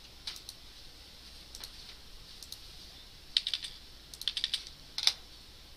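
Computer keyboard keystrokes, a few single taps and then short clusters of several keys at a time, as a line of code is commented out.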